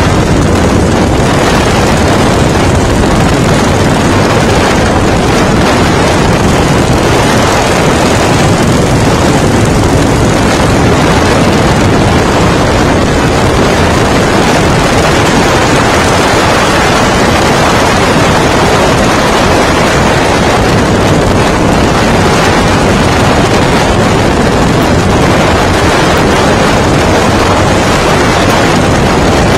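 Loud, steady wind noise on the microphone of a phone carried on a moving motorcycle, blended with the bike's running and road noise.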